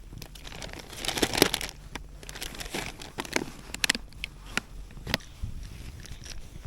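Close handling noises: irregular crinkling and rustling with sharp clicks, the busiest stretch about a second in, then a few scattered clicks.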